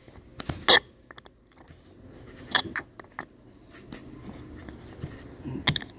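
A steel hook pick scraping and clicking against hard plastic as a small trim cover is pried out of a 2013 Ford F-150's door-pull cup. A few sharp clicks, the loudest a little under a second in, with more around the middle and near the end.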